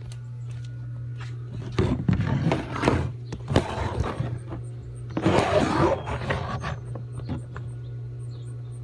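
Two stretches of rubbing and scraping, about two seconds in and again about five seconds in, over a steady low hum.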